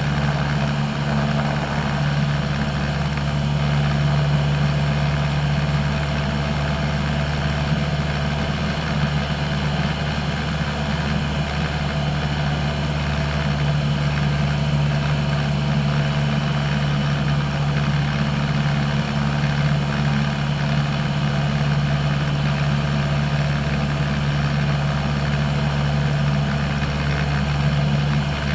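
Single-engine light airplane's piston engine and propeller heard from inside the cabin in cruise flight: a steady, unchanging drone with a strong low hum.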